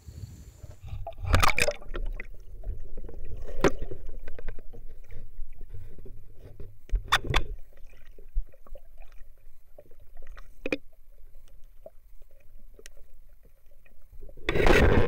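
Shallow water sloshing and splashing, with scattered sharp knocks and taps; the splashing turns louder and busier near the end.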